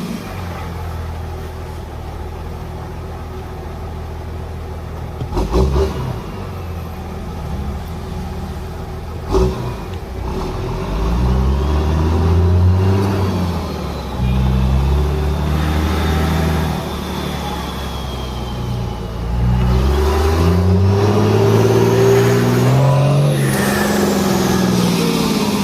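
Dodge Ram's Cummins straight-six turbo-diesel running steadily for about ten seconds, with two short knocks. It then pulls away under load, its pitch climbing and dropping back at each gear change through the manual gearbox, with a faint high whistle rising alongside.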